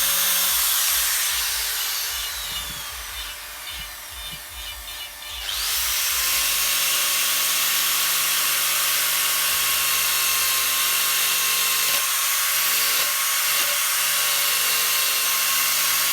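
Handheld electric carving tool running against wood, a steady high-pitched grinding hiss that drops away for a few seconds about two seconds in, then comes back at full level.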